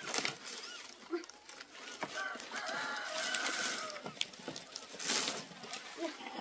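Chickens clucking, with a longer drawn-out call about two and a half seconds in and a few short high peeps, over bursts of rustling.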